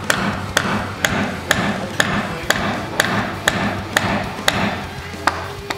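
Hammer blows on a timber frame at a steady pace of about two a second: about a dozen sharp strikes, the last two a little further apart.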